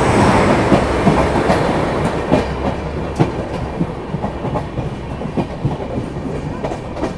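Passenger train running, heard from beside its coaches: a steady rush with wheels clattering over rail joints. It is loudest in the first seconds as it runs past a freight train on the next track.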